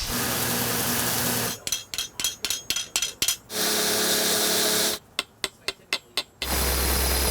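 Rapid hammer blows on a steel anvil, each with a bright metallic ring, in two quick runs of several strikes. They are cut between stretches of steady machine noise: a belt grinder at the start and a low hum at the end.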